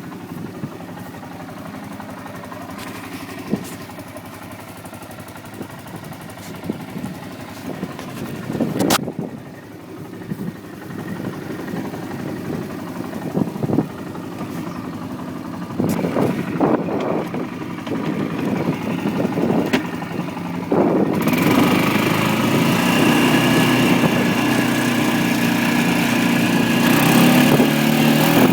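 1997 Kawasaki Prairie 400 ATV's single-cylinder four-stroke engine idling steadily, with a few sharp knocks. About three-quarters of the way through it gets louder and stays louder as the ATV gets under way.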